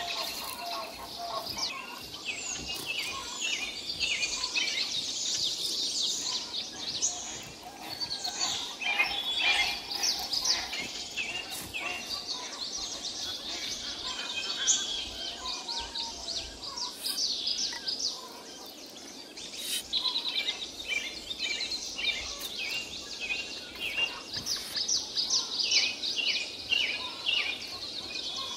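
Many small birds chirping and calling together in a busy, continuous chorus, with a few sharp clicks; the chorus thins briefly about two-thirds of the way through.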